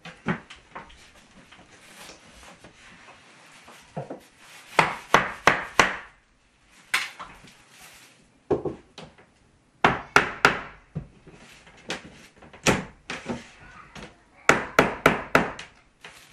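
Hammer blows on a wooden ceiling board, nailing it up overhead. The strikes come in quick groups of two to four, with pauses in between.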